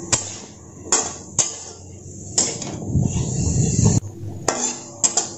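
Flat metal spatula knocking and scraping against a metal kadai while stir-frying sliced mushrooms, with irregular strikes about every second and a longer scrape about three seconds in.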